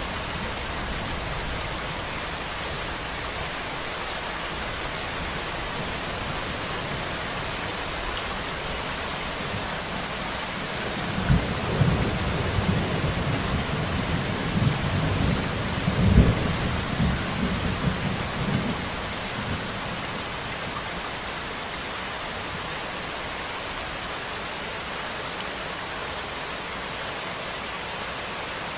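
Steady heavy rainfall, an even hiss. About eleven seconds in, a low rumble rises over it for several seconds, loudest past the middle, then fades back into the rain.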